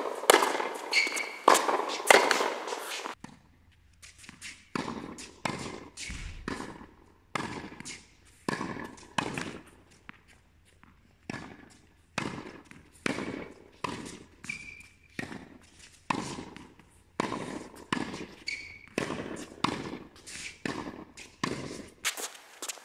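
Tennis ball repeatedly struck by rackets and bouncing on a hard indoor court, sharp pops echoing in the hall, with a few short shoe squeaks.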